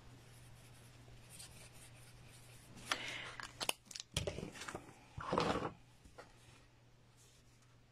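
Cardstock rustling and scraping as a stamped card panel is slid up off a sheet of paper and handled, in a few short crackly spells with sharp clicks from about three to six seconds in.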